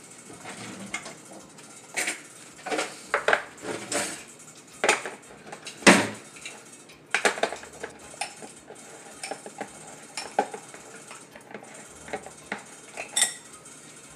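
Irregular metallic clinks, clicks and knocks from a can of albacore tuna being opened and handled, the loudest knock about six seconds in.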